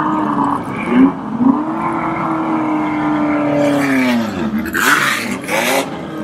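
Historic racing car engine blipped twice, then rising and holding a steady note for about two seconds before its pitch drops away sharply about four seconds in. Two short, loud, noisy bursts follow around five seconds in, and another engine note comes in near the end.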